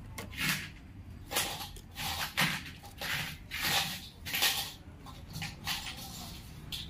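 A string of short, irregular scraping and rustling noises from engine parts and tools being handled during assembly, over a steady low hum.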